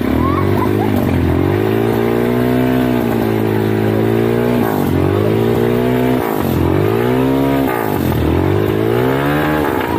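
ATV (quad bike) engine revving, its pitch climbing and dropping about four times as the throttle is opened and eased.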